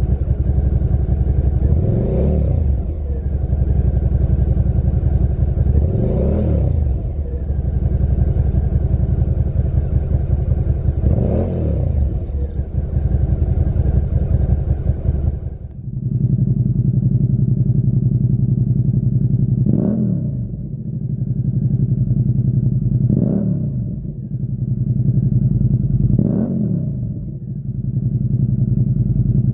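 Suzuki SV650's 645 cc V-twin idling and blipped three times through its stock silencer. About halfway through it switches to the same engine through a Lextek XP10 aftermarket silencer, idling with a deeper note and blipped three more times.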